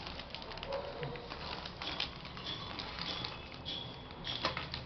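Light irregular clicks and taps of laptop parts being handled during a repair, with a few short high-pitched tones between them.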